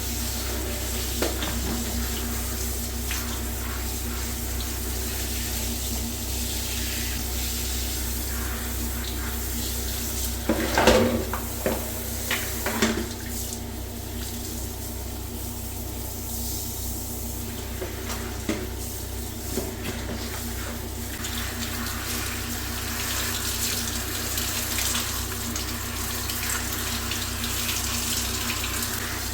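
Water running steadily from a tap, with a brief clatter of hard objects knocking together about eleven seconds in.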